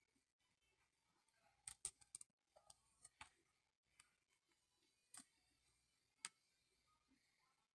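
Faint, scattered clicks and taps, a cluster of them about two seconds in and single ones after, from handling the iPad and small repair tools.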